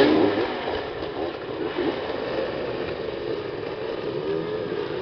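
Several motoball motorcycle engines running and revving, their pitch rising and falling as the riders jostle for the ball. The sound is loudest at the start, then eases off, with another short rev about four seconds in.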